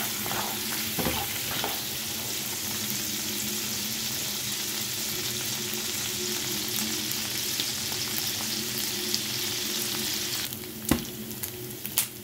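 Beef chunks sizzling as they brown in hot oil in a nonstick frying pan, with a silicone spatula scraping and turning them in the first couple of seconds. The sizzle dies down about ten and a half seconds in, followed by two sharp knocks.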